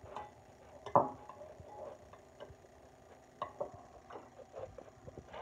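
A spoon clicking and scraping against a bowl as pot pie is scooped up: scattered small clicks, with one louder knock about a second in.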